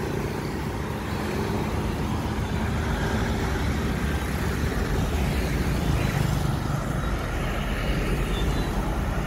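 Steady road traffic: motorbikes and cars passing on a multi-lane road, a continuous rumble of engines and tyres.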